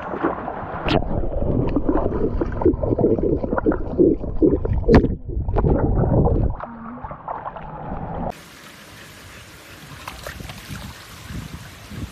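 Water churning and splashing as a Pembroke Welsh Corgi doggy-paddles, muffled, with the camera at and under the surface, broken by many short splashes. About eight seconds in it gives way to a much quieter, steady hiss of water.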